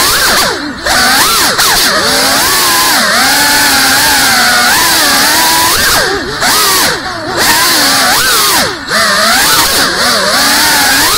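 Small FPV quadcopter's brushless motors and propellers whining, the pitch rising and falling constantly with the throttle. The sound drops out briefly about a second in, twice around six to seven seconds in, and again near nine seconds, where the throttle is cut for flips and rolls.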